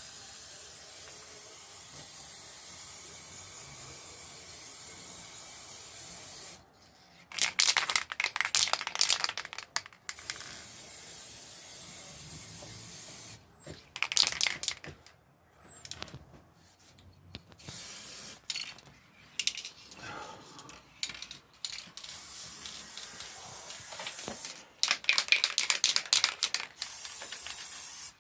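Aerosol can of black spray paint hissing in long, steady sprays. Between sprays come a few loud spells of rapid rattling, like the can being shaken with its mixing ball knocking inside.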